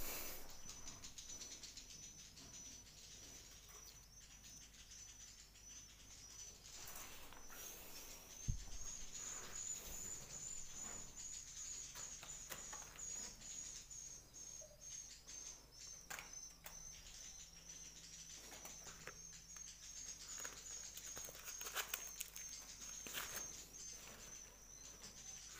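Swiftlets inside a swiftlet house: scattered sharp clicks, chirps and wing flutters, faint, over a steady high-pitched warbling tone.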